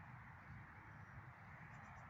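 Near silence: faint steady outdoor ambience with a low rumble, and a few faint short high chirps near the end.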